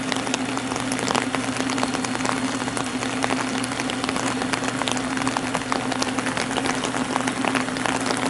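Steady rain falling, with many separate drops heard hitting surfaces, over a steady low hum.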